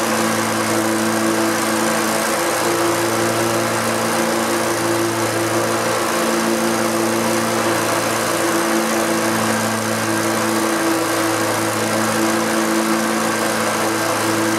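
Briggs & Stratton 24 hp Intek V-twin engine on a zero-turn mower running steadily at an even speed, on its first test run after being swapped in.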